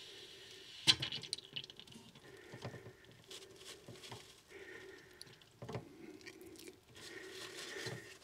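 Faint rustling and crunching of a paper towel handled around a plumbing isolation valve, with small knocks and a sharp tap about a second in.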